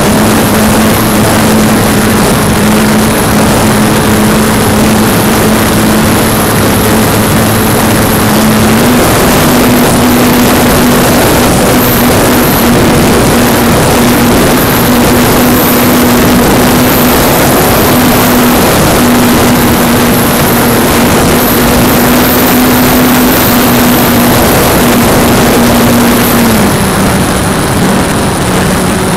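Radio-controlled plane's motor and propeller running, heard from a camera mounted on the plane, with a steady rush of air over it. The motor's pitch steps up about a third of the way in as the throttle is opened and drops back near the end.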